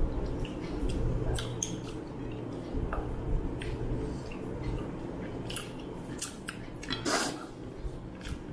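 Eating by hand: chewing and mouth smacks, with fingers squishing rice and mutton curry on glass plates and giving many small scattered clicks, over a faint steady low hum.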